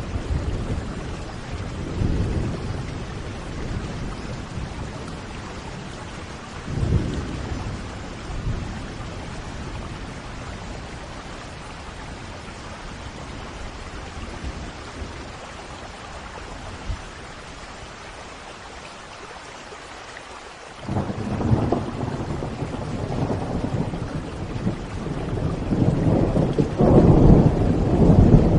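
Steady rain with rolling thunder. Low rumbles swell about two and seven seconds in; then, about three-quarters of the way through, a loud thunderclap breaks in sharply and keeps rumbling, growing to its loudest near the end.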